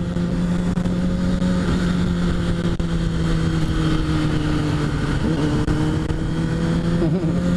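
Inline-four sport bike engine running steadily under way, its pitch sagging slightly and then climbing again, over a low wind rumble on the microphone.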